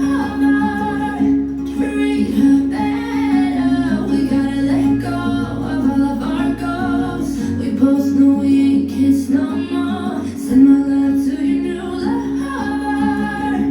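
Alpha Works W38 acoustic guitar played with a woman singing along, a song with a steady accompaniment and low bass notes that change every few seconds.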